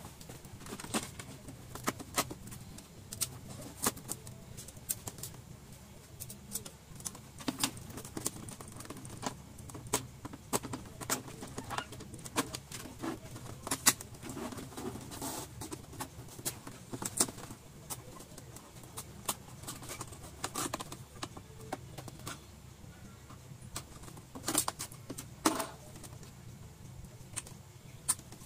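Irregular clicks, ticks and light clatter of plastic connectors, cables and small metal parts being handled and unplugged while an LED TV's circuit boards are taken apart, over a faint steady low hum.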